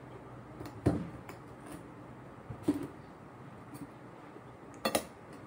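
Metal spoon and fork clinking and scraping against a plate during eating: a few sharp clinks, the loudest a quick double clink near the end, over a steady low hum.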